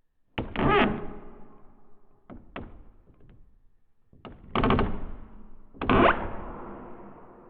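Wooden door creaking on its hinges three times, each creak starting with a sharp knock and dying away over about a second. Two short taps fall between the first and second creaks.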